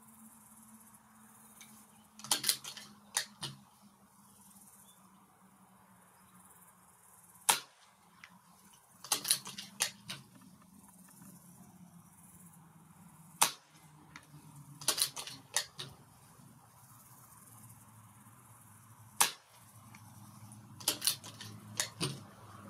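Reximex Throne Gen-2 .177 PCP air rifle firing three single shots about six seconds apart. Between the shots come short runs of sharp clicks from the rifle's action.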